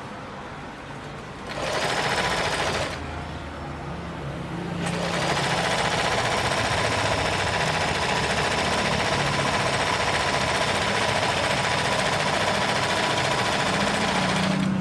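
Janome NS 385 sewing machine, driven by its external motor, sewing a 2 mm straight stitch. It runs in a short burst of about a second, pauses, then runs steadily for about ten seconds.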